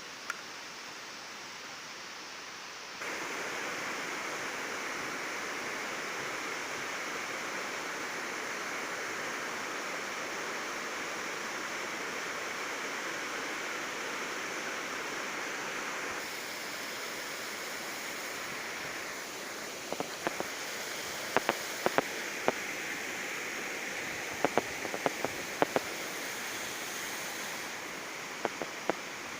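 Waterfall rushing as a steady spread of water noise, stepping louder about three seconds in; from about twenty seconds in, a scatter of sharp clicks sounds over it.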